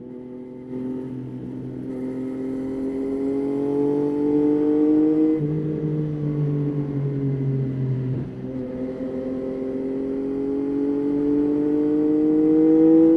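Yamaha Tracer 9's inline three-cylinder engine accelerating under load. Its note climbs steadily and drops back at gear changes about five and eight seconds in, and again at the very end.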